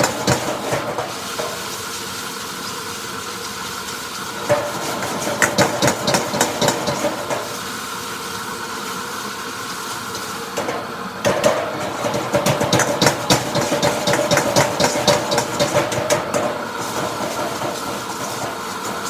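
Wok stir-frying: metal spatula scraping and clattering against the wok in spells, over a steady burner hum and sizzling.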